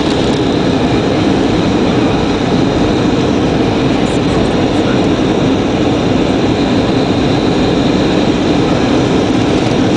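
Steady jet airliner cabin noise on descent: turbofan engine and airflow heard from inside the cabin, even and unchanging, with a faint high whine.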